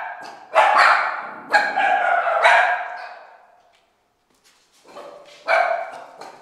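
Dog barking repeatedly, echoing: a quick run of barks over the first three seconds, a pause, then more barks near the end.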